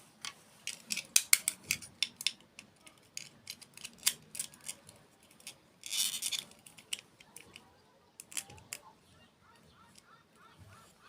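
Close-miked crunchy eating: a quick run of sharp crackling bites and clicks, with a short rustling crunch about six seconds in and faint squeaky chirps near the end.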